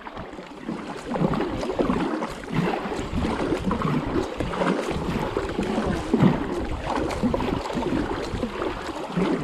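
Double-bladed kayak paddle pulling hard through river water, splashing and gurgling at each stroke unevenly, with water rushing along the kayak's hull.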